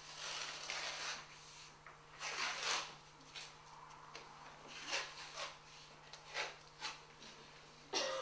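Intermittent rustling and scuffing of people shifting on a wooden platform, in short bursts a second or two apart, the longest in the first second.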